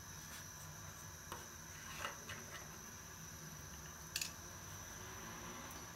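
Gas stove burner running faintly under an empty aluminium saucepan: a steady low rumble, with a few light ticks, the clearest about two and four seconds in.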